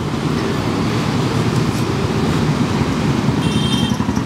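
An engine running close by, a steady low throbbing with rapid pulses that grows slightly louder.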